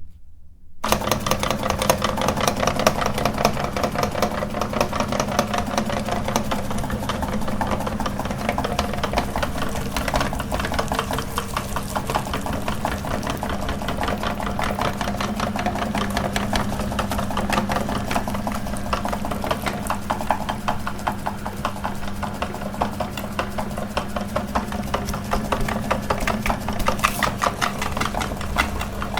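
Electric meat grinder switched on about a second in, its motor running steadily with a constant hum and a fast even rattle from the gears and auger.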